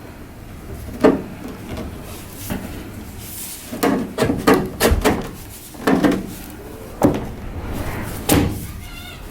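A string of irregular knocks and clunks, hard objects being handled and set down, with a quick cluster of them about four to five seconds in.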